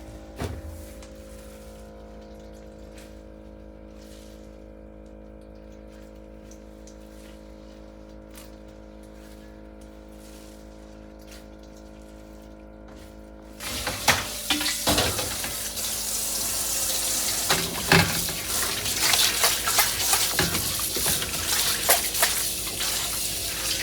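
A steady faint hum with a single knock just after the start, then, a little past halfway, a kitchen tap turned on: water running hard and splashing into the sink.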